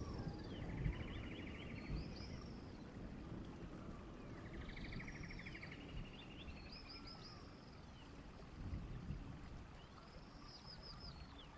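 A songbird singing the same short phrase three times, about every five seconds: a few falling whistled notes and a fast trill, over a faint low rumble.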